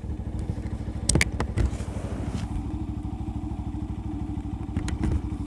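Motorcycle engine running steadily at low revs with an even pulsing beat, the bike riding an off-road dirt track. Sharp knocks and rattles come about a second in and again near the end.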